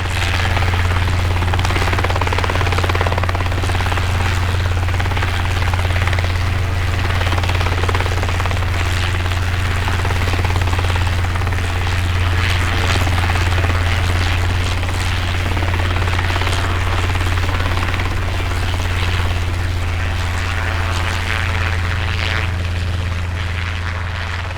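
Helicopter rotor and engine running steadily: a deep, constant drone with a dense hiss over it, easing slightly lower near the end.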